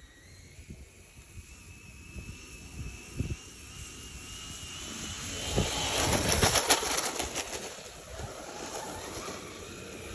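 Brushless electric motor of a radio-controlled Kyosho Blizzard snow vehicle whining, rising in pitch as it speeds up. Its tracks rattle over hard-packed snow, getting louder to a peak about six to seven seconds in, then fading away.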